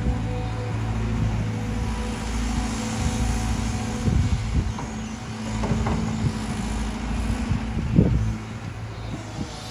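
Cat 320GC excavator's diesel engine running steadily, with a few knocks and clanks about four, six and eight seconds in, the loudest near eight seconds.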